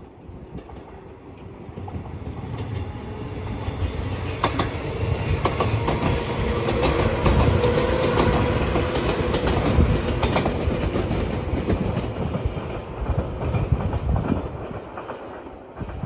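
JR 115 series electric train approaching and passing close by, its wheels clacking over the rail joints. It grows louder, is loudest about halfway through, then fades as it moves off.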